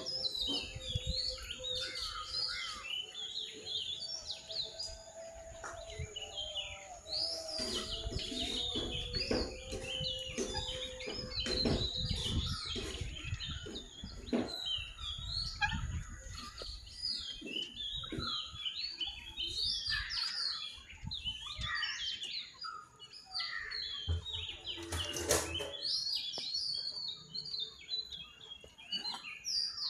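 A dense chorus of many birds chirping and calling, short high notes overlapping without pause, over a steady high whine. Low rumbles and scattered knocks come and go, strongest in the middle, with one sharper knock about 25 seconds in.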